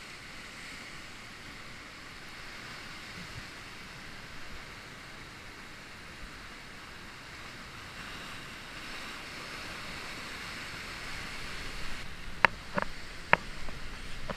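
Heavy surf breaking and washing around sea rocks below a cliff, a steady rush of foaming water. Near the end come three sharp knocks close to the microphone.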